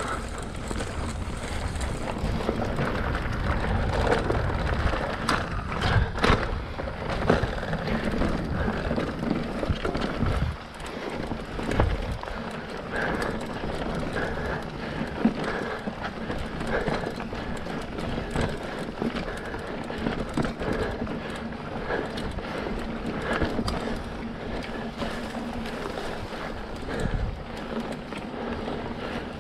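Specialized Rockhopper mountain bike ridden along a dirt trail: tyres rolling over the ground, with frequent knocks and rattles as the bike goes over bumps.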